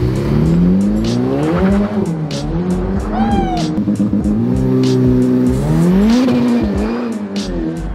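Ferrari F8 Tributo's twin-turbo V8 revving hard as the car pulls away and accelerates past, the pitch climbing and dropping back with each upshift. There is a short high squeal about three seconds in.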